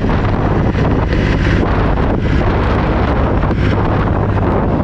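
Wind buffeting the microphone over the steady low drone of a fishing boat's engine running.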